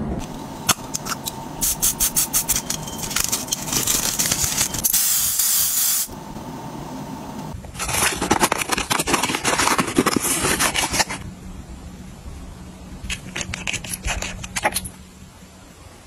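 Close-up handling noises of hands with plastic containers and a cardboard product box: quick runs of clicks, taps and scrapes, with a short hissing rush about five seconds in.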